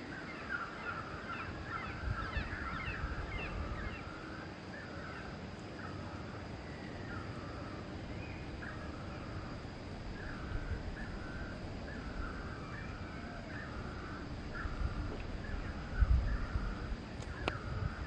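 Birds calling outdoors: a long series of short, evenly repeated calls, with a flurry of higher, rising chirps in the first few seconds and a few low thumps near the end.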